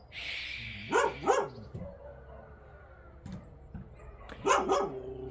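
A dog barking in quick pairs: two barks about a second in and two more near the end.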